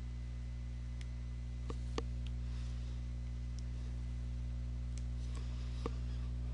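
Steady low electrical hum, with a few faint clicks of a stylus tapping a tablet screen while writing by hand.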